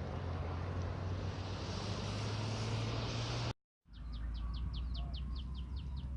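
Steady outdoor noise with a low hum breaks off abruptly about three and a half seconds in. After it, a bird sings a fast trill of about a dozen quick, high, repeated notes.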